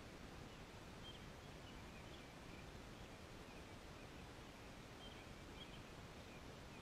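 Quiet outdoor ambience before a storm: a steady faint hiss with a few faint bird chirps now and then.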